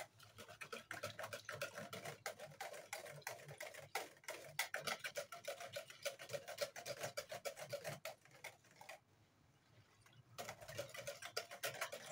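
Wire whisk stirring sugar syrup into hibiscus juice in a plastic bucket: a faint, quick run of light ticks and scrapes as the wires knock and rub against the bucket. It stops about nine seconds in, then starts again about a second later.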